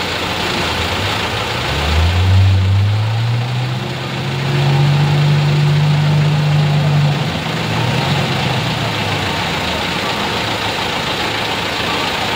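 A truck's diesel engine revving up about two seconds in, holding at high revs under load, then easing back down about seven seconds in. This is a truck straining to climb a slope of deep mud with its wheels spinning.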